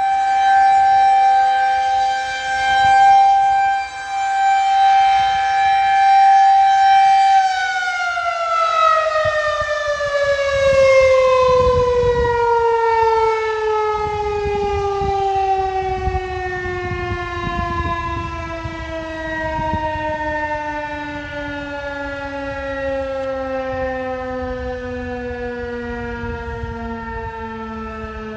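Federal Signal 2001-130 rotating outdoor warning siren sounding a tornado warning: a steady wail that swells and fades as the horn rotates, then, about seven seconds in, winds down with the pitch falling slowly and steadily.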